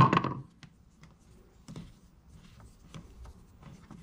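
Faint rubbing and light clicks of hands pressing a gasket cord into the grooves of a CNC vacuum table's rubbery plastic grid.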